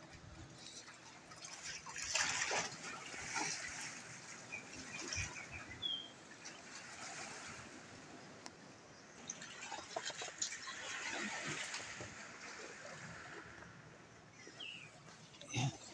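Sea waves washing over a rocky shore, swelling and ebbing twice. A few short bird chirps and some scuffs of footsteps on rock are also heard.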